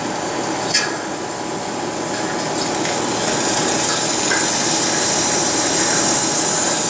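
Red-hot railroad-spike steel froe blade being quenched in a quench tank, hissing and bubbling steadily as it is hardened. The hiss grows louder about halfway through. There is a short knock a little under a second in.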